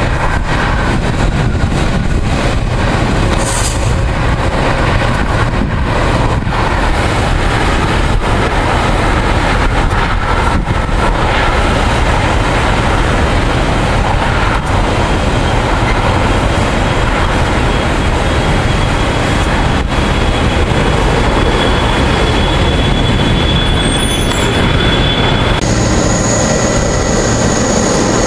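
Airbus A330-223 jet, with Pratt & Whitney PW4000 engines, in its landing rollout: a loud, steady rumble of engine and rolling noise. Near the end the sound changes abruptly to the jet taxiing, with a steady high engine whine over the rumble.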